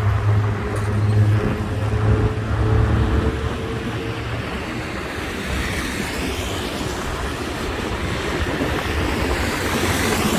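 Road traffic: a vehicle engine runs with a steady low hum for the first four seconds or so, then gives way to the wash of traffic, with a vehicle passing near the end.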